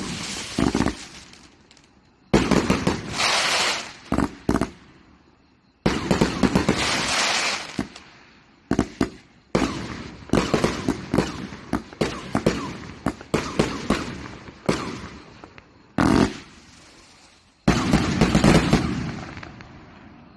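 A 92-shot firework cake firing: clusters of loud bangs and crackling bursts with short gaps between them. A last flurry fades away near the end.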